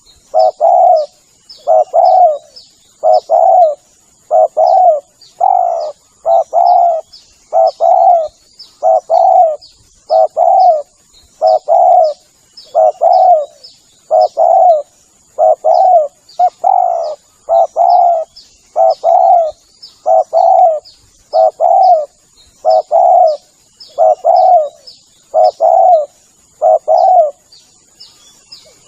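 Spotted dove cooing over and over, a phrase of two or three low coos about once a second: the tekukur call used as a lure to draw in wild doves. Faint high chirps and a steady thin high hiss run beneath it.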